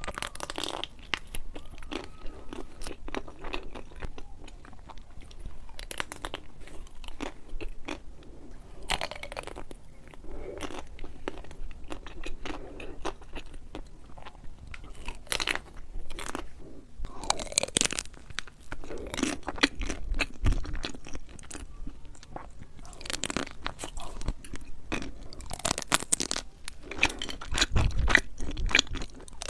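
Close-up eating sounds: irregular loud crunches of biting into and chewing crisp food, with softer chewing between them.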